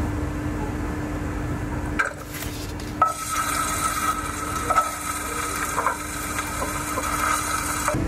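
Pen scratching across paper during handwriting, with a few light taps and clicks.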